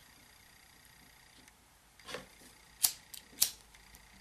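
A small hand cutting tool snipping twice: two sharp clicks a little over half a second apart, after a softer brushing sound about two seconds in.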